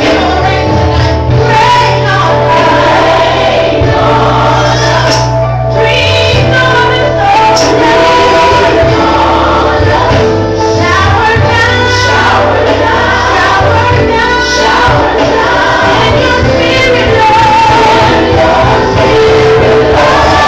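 Recorded gospel song with a choir and lead singers over a steady bass line, playing loudly as the track for a mime dance.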